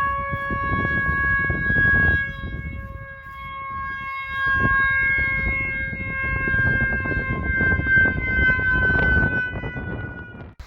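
Warning siren at a dam sounding one long, steady tone whose pitch sags slightly before it cuts off near the end, over a low rumbling noise.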